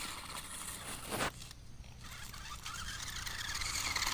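The twin small electric motors of a toy RC rock-crawler truck whining as it drives over dry dirt, with a sharp knock about a second in.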